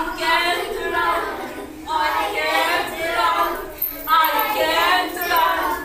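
Young children's voices chanting together in three drawn-out phrases, each about a second and a half long, with short breaks between them.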